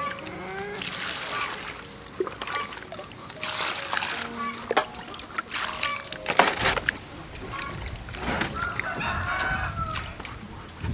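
Hands splashing and sloshing vegetables in a metal bowl of water, in several bursts, the loudest about six and a half seconds in. Chickens call nearby, including crowing.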